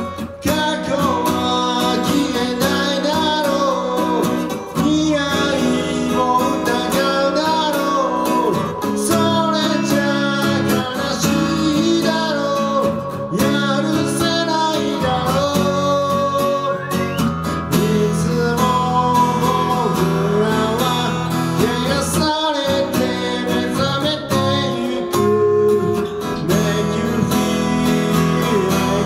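Acoustic guitar strummed steadily while a man sings along to it.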